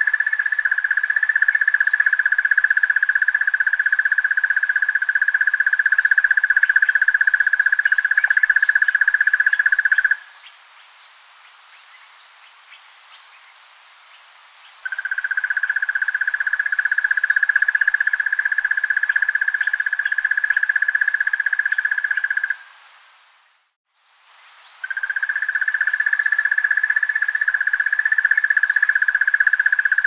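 Crested barbet calling: a long, rapid trill held evenly on one pitch for about ten seconds, then after a pause of a few seconds two more long trills.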